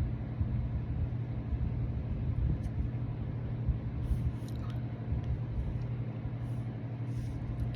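Steady low rumble with a constant droning hum underneath.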